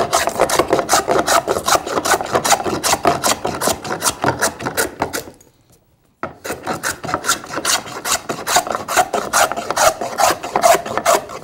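Lie-Nielsen No. 40-1/2 scrub plane taking heavy cuts across a board in quick up-and-back diagonal strokes, roughly four a second, each stroke a coarse rasping shave of wood. The strokes stop for about a second midway, then start again.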